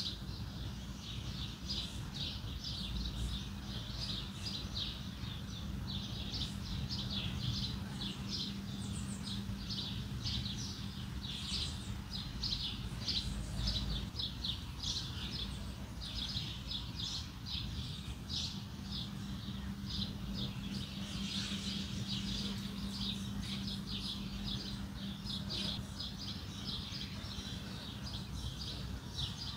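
Many small birds chirping continuously in quick, irregular short calls, over a steady low hum.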